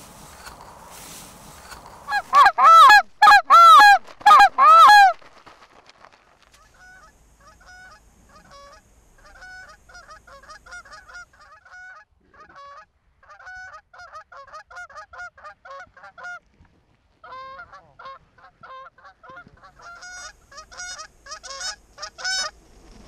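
Canada geese honking: a burst of loud, close honks from about two to five seconds in, then a long run of fainter, quick honking that grows louder again near the end.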